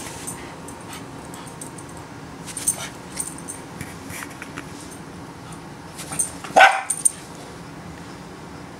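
Pembroke Welsh Corgi puppy giving one short, sharp bark about six and a half seconds in, with a few soft clicks earlier.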